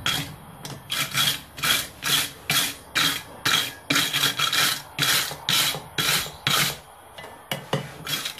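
Steel wire brush scrubbing red-hot forged steel tongs, about two quick scraping strokes a second with a brief pause near the end, brushing off the forge scale.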